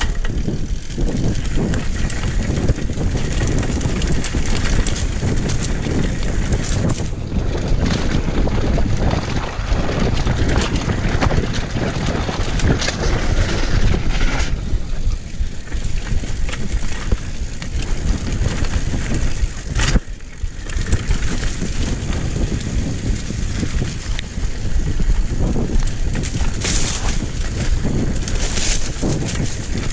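Wind buffeting the bike-mounted camera's microphone over the rumble and rattle of a mountain bike rolling fast down a dirt singletrack, with a few sharp knocks from the bike over bumps.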